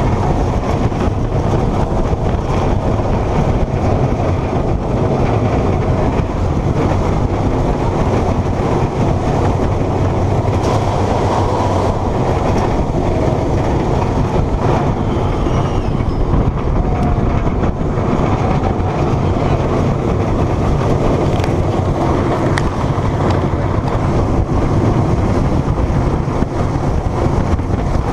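Millennium Force, an Intamin steel giga coaster, running at speed, recorded from a rider's seat: a loud, steady rumble of the train's wheels on the steel track mixed with rushing wind.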